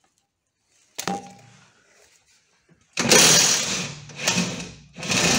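Socket wrench and spanner working a rear suspension-arm bolt loose: a sharp metal click about a second in, then from about three seconds a loud, uneven stretch of metal-on-metal noise as the bolt is turned.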